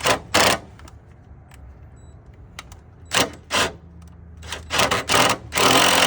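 Cordless impact driver run in short bursts, driving in a fastener on the air box: two quick bursts at the start, two more about three seconds in, then several rapid bursts and a longer run near the end.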